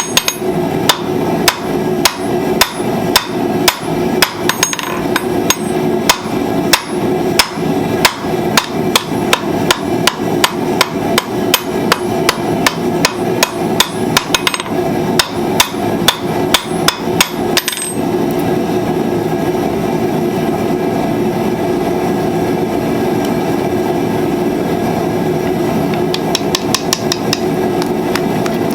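Blacksmith's hammer striking hot steel on an anvil while forging flat-nib tongs, about two to three blows a second. The hammering stops about eighteen seconds in, leaving a steady rushing noise, and a short run of quick light taps comes near the end.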